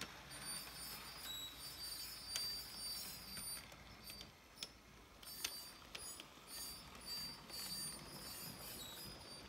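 Model train rolling past: a faint mechanical whir with the wheels clicking and rattling over the track, and a few sharper clicks, as the locomotive and a string of double-stack container cars go by.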